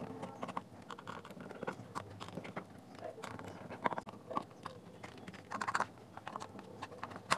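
Faint, scattered clicks and scrapes of a small screwdriver and hands working on a plastic speaker housing, turning out screws and pulling at the mounted driver.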